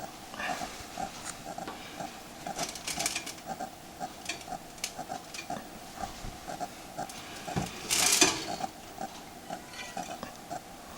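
Light clatter and rustling from handling a hot glass Pyrex dish and aluminium foil, with the loudest rustle about 8 s in. A faint short tone repeats about three times a second underneath.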